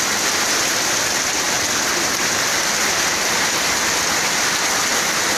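Heavy rain pouring steadily onto a flooded lane, an even hiss with no breaks.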